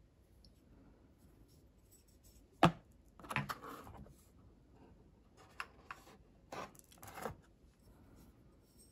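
Small glass whisky bottles handled in a cardboard gift box: a sharp knock as a bottle is set down about two and a half seconds in, then scraping and knocking as the bottles are shifted, a few light ticks, and two short rubbing bumps as a bottle is lifted back out.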